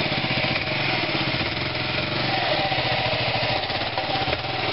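Dual-sport motorcycle engine running steadily with a rapid putter, under load as the stuck bike is pushed and ridden free.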